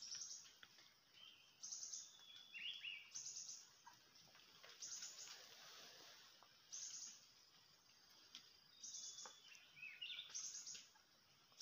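Faint bird calls: short, high chirps repeating about every one and a half seconds, with a few lower, sliding whistled notes among them.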